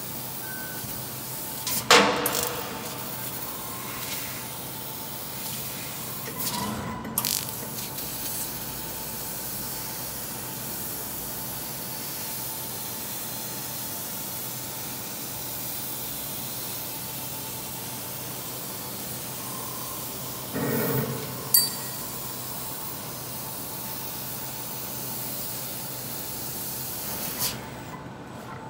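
Fiber laser cutting machine cutting sheet metal: a steady hiss of assist gas from the cutting head. A few sharp knocks and clinks come through, and the hiss drops away shortly before the end.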